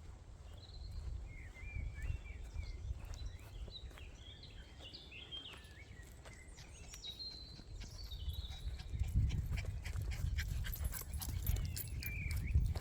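Small dog whimpering in short, high, wavering squeaks, with footsteps crunching on the ground that grow louder in the last few seconds and wind rumbling on the microphone.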